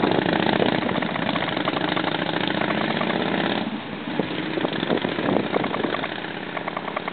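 Motorcycle engine running, then dropping to a quieter, more uneven sound about halfway through.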